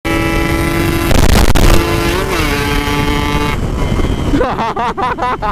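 Two-stroke Yamaha RX-King motorcycle engine revving through its aftermarket exhaust. It is held at a steady high pitch for about three and a half seconds, then blipped in quick rises and falls near the end.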